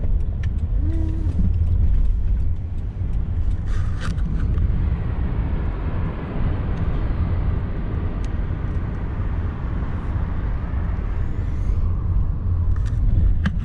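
Steady low road and engine rumble inside a moving vehicle, with a few faint ticks and rattles.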